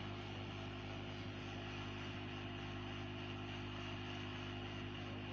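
Hot air gun of a rework station blowing steadily while desoldering a small transistor from the TV board: an even airflow hiss over a steady motor hum.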